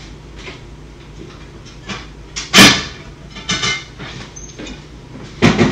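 Kitchen clatter of a plate being fetched from a cupboard: a series of knocks and clacks, with one loud bang about halfway through and another loud knock near the end.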